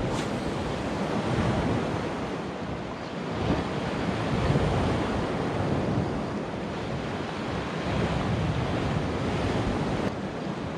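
Sea surf washing onto the shore, swelling and easing, with wind buffeting the microphone.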